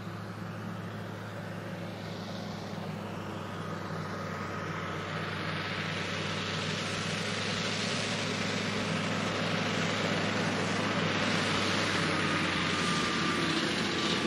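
Scania V8 diesel in a converted Steiger Cougar tractor running steadily under load while pulling a cultivator. It grows louder as the tractor approaches, with a hiss building over the engine note.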